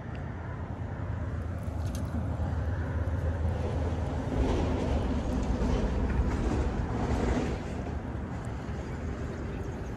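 A breeze blowing across the microphone: a low, uneven rumble of wind noise that swells for a few seconds in the middle.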